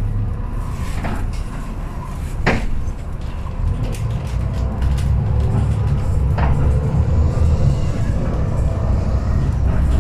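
Volvo B7TL double-decker bus's six-cylinder diesel engine running under way, heard from inside the passenger saloon as a steady low drone that grows a little louder after about four seconds. Interior fittings rattle and knock a few times, most sharply about two and a half seconds in.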